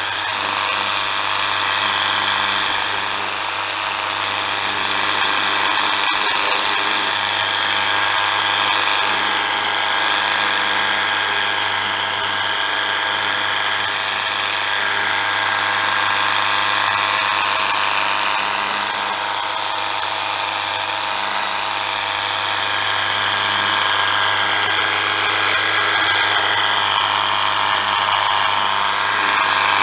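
Spear & Jackson cordless handheld pressure washer running continuously: its small electric pump motor whines steadily under the hiss of the water jet spraying onto the bike.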